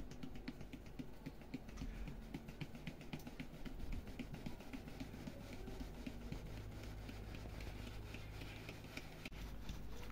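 Flour being sifted by hand through a round sieve over a plastic basin: a quick, uneven patter of small taps and rustles as the sieve is shaken.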